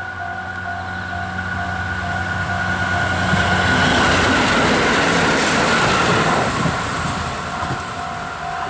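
KiHa 25 diesel railcar passing close by, its engine running and its wheels rolling on the rails, the noise swelling to a peak about halfway through and then fading. A level-crossing alarm rings over it in a fast, even, repeating pulse.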